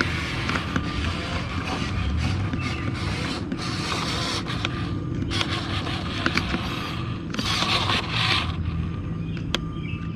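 Small electric drive motors and gearing of a radio-controlled construction model running steadily, with irregular bursts of scraping and a few clicks as it works the dirt.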